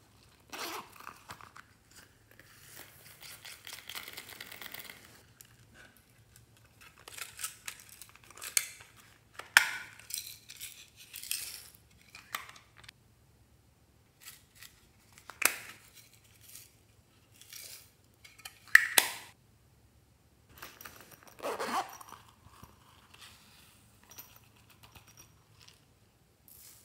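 A zipper pulled open on a silicone coin purse, then rustling and crinkling of small plastic pieces and sequins, with several sharp plastic clicks and clinks.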